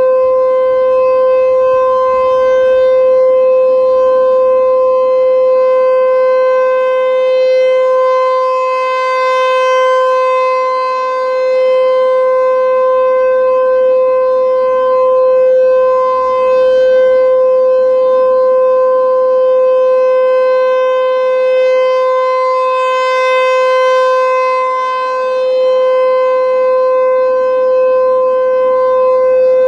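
American Signal Corporation T-128 electronic outdoor warning siren sounding its steady Alert tone for a siren test: one unbroken, loud tone whose higher overtones swell twice, about fourteen seconds apart.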